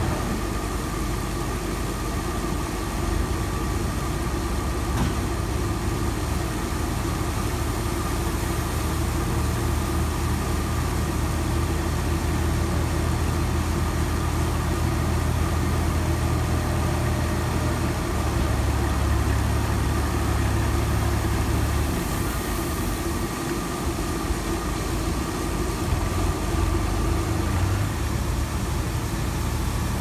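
Universal U445 tractor's diesel engine running steadily while pushing a pile of paddy grain with a front blade. The engine note grows heavier for a few seconds about two-thirds of the way through, then briefly eases.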